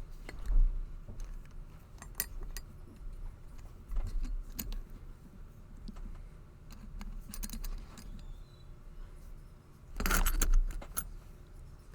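Small metallic clicks and rattles from a Master Lock No. 19 padlock and lock-picking tools being handled, with a denser burst of clinking about ten seconds in.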